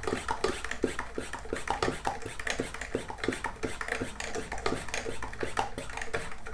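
Hand pump of a garden weed sprayer being worked in a quick, even run of short strokes, pressurizing the tank of engine oil that is fed into an LS V8's oil galleys to prime it.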